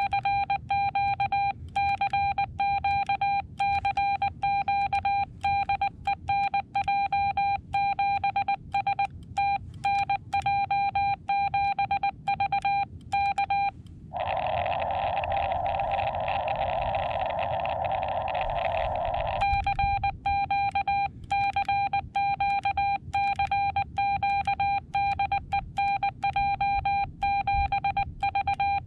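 Morse code (CW) sidetone from a Xiegu X6100 transceiver, a steady beep keyed rapidly on and off, sending a CQ call: "CQ CQ CQ DE NJ7V K". About halfway through, the keying stops for roughly five seconds and the receiver's narrow band hiss comes through while listening for a reply. Then the CQ is sent again.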